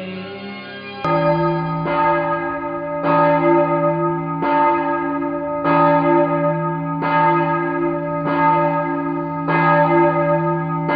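Church bell tolling, a stroke about every second and a quarter, each stroke ringing on into the next.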